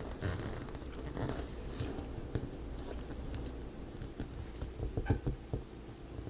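Faint scattered clicks, taps and rustles of small wooden kit parts being handled, fitted and pressed together while gluing, with a few sharper clicks about five seconds in.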